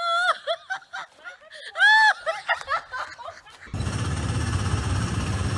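High-pitched laughing and squealing, loudest in one long squeal about two seconds in. A little before four seconds it cuts to a steady low rumble with hiss from small track-ride cars running.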